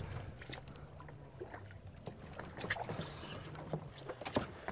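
Fishing boat's engine idling with a steady low hum, with scattered short clicks and knocks over it.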